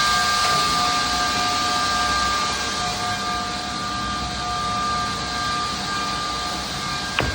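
Edge banding machine running at speed: a steady high motor whine over a hiss, with a single sharp click near the end.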